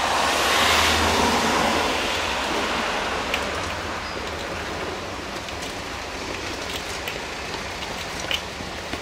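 A steady rushing noise, loudest in the first couple of seconds and then slowly fading, with a few light clicks and knocks as bicycles are wheeled down the steps.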